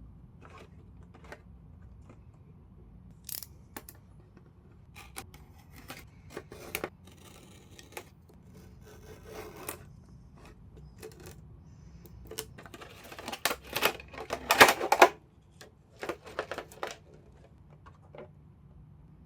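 A small cardboard figure box and its plastic packaging being opened and handled: scattered clicks, taps and scraping rubs, with a longer, louder burst of scraping and rustling about two-thirds of the way through.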